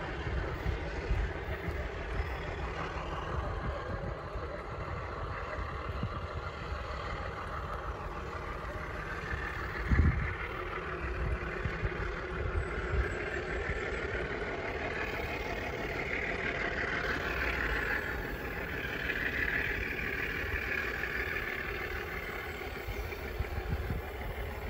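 Scrap freight train running, a steady low rumble with one louder thump about ten seconds in. A hissing grows stronger past the middle and then fades.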